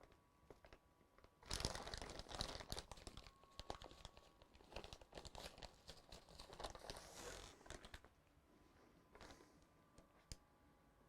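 Faint crinkling and rustling with light clicks, in two stretches in the first half, from hands handling computer parts.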